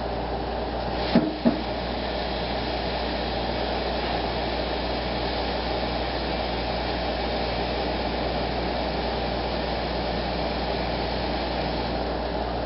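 Steady rushing noise of a kitchen range-hood fan running, with a brief knock about a second in.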